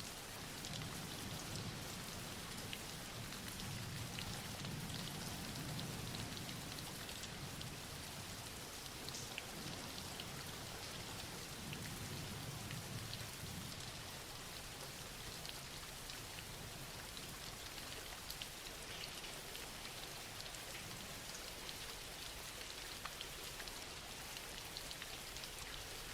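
Steady soft rain falling and pattering on surfaces, with fine droplet ticks throughout. A low rumble swells and fades over roughly the first half.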